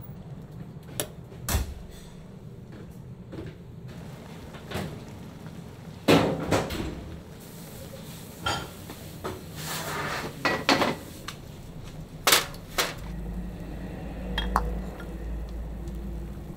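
Metal pots, bowls and utensils clattering and knocking in a kitchen, with scattered clinks and the loudest knocks about six and twelve seconds in. A low hum joins in from about thirteen seconds.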